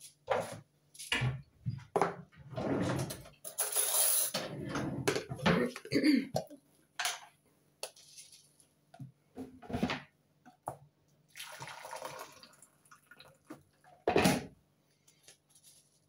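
Kitchen clatter: crockery, pans and cutlery knocking and clinking at irregular intervals, with a few short stretches of rushing noise, the loudest about four seconds in.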